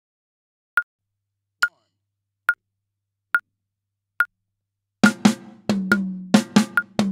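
Metronome click at 70 BPM ticking steadily, six clicks. About five seconds in, a Pearl acrylic drum kit comes in with a fast fill of drum and cymbal hits, the toms ringing, while the click carries on.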